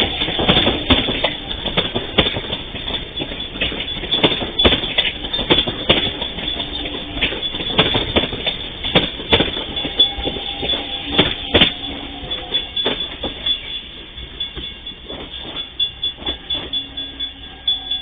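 Electric commuter train passing over a level crossing, its wheels clacking over the rail joints again and again. The clacks come further apart and get quieter over the last few seconds as the train moves on.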